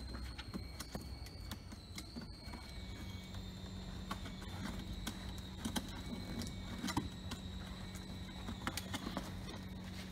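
Cardboard display box being assembled by hand: its panels handled and folded, giving scattered taps, knocks and scrapes, over a faint steady high whine.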